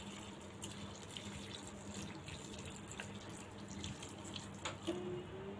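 Water pouring steadily from a plastic jug into a pan of chopped bottle gourd pieces, splashing faintly over the vegetables, with a small click near the end.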